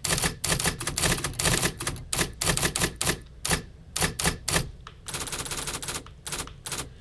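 Simulated IBM Selectric typewriter sound effects from the Hanx Writer app: a rapid, irregular run of key strikes as text is typed, with a quicker flurry near the end.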